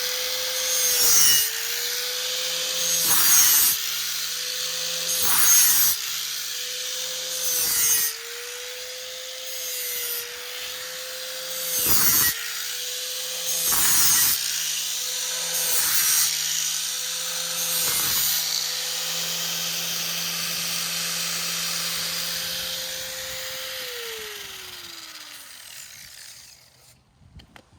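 Electric sander running with a steady hum while the steel edge of a Glock folding survival shovel is pressed to the abrasive in repeated passes, each a loud grinding rasp, about one every two seconds for some eight passes. Near the end the motor is switched off and its pitch falls as it winds down.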